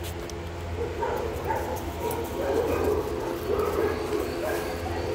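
Dog barking and whining in irregular short calls.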